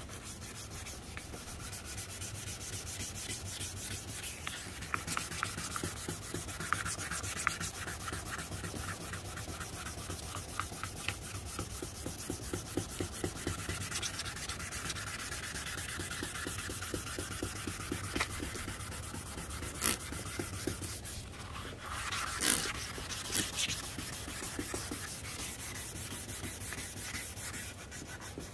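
Sandpaper sanding a plastic headlight lens in quick, steady strokes, stripping off a soft old clear coat, with a few louder knocks about two-thirds of the way in.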